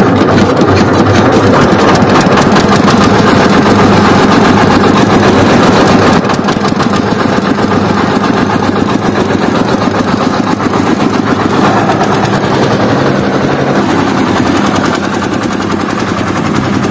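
A small engine running steadily with a fast, rattling firing beat.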